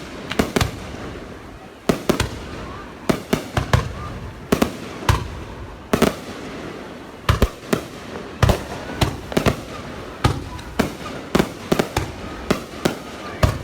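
Fireworks bursting: an irregular series of sharp bangs, sometimes several in quick succession, each with a short echo, over a steady background rumble.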